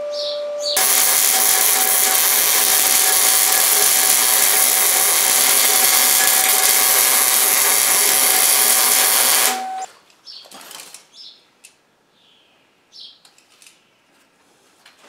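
Electric arc welder crackling steadily for about nine seconds as a steel railway wheel is welded to its axle, then stopping suddenly. A few faint knocks follow.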